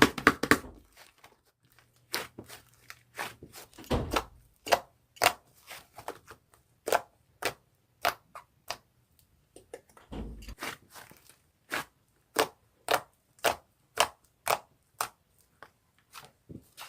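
A series of irregular sharp clicks and taps, about one or two a second, with a heavier thump about four seconds in and a low thud about ten seconds in.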